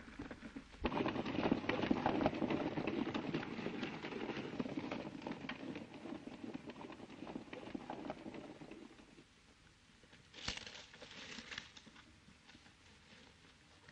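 Hoofbeats of several galloping horses, a dense clatter that starts abruptly about a second in and fades away over the next several seconds. After that it is quieter, with a short scuffling burst near the end.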